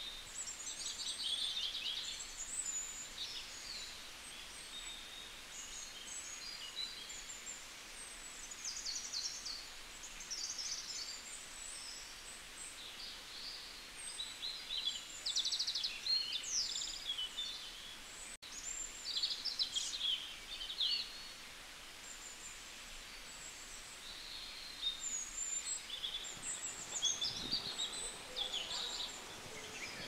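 Small birds chirping and calling over and over, in short high-pitched phrases, over steady outdoor background noise, with a brief low rumble near the end.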